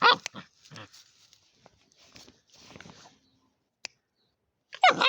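A one-month-old German shepherd puppy barking in short high yaps: one loud yap at the start and another about five seconds in, with faint scuffling in between.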